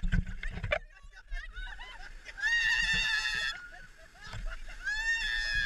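Two long, very high-pitched screams, each held for about a second, the first about two and a half seconds in and the second about five seconds in, from people on an inflatable raft as a wave comes at them. Wind rumbles on the action camera's microphone for the first second.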